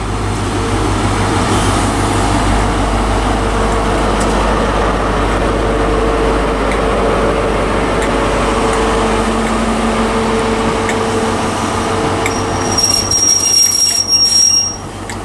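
Great Western Railway HST (InterCity 125) with Class 43 power car 43016 running into the station: steady diesel engine noise and wheel rumble, with a high brake squeal near the end as it draws to a stop.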